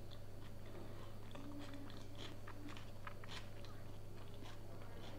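A person chewing a mouthful of herring-under-a-fur-coat salad with marinated mushrooms, close to the microphone: a string of small, irregular mouth clicks and squelches, over a steady low hum.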